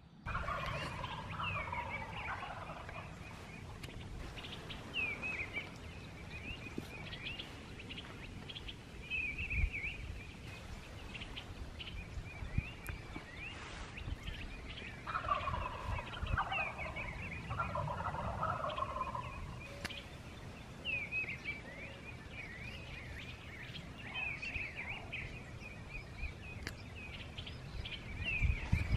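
Eastern wild turkey gobbler gobbling three times: once about a second in and twice close together about halfway through, each a falling, rattling call.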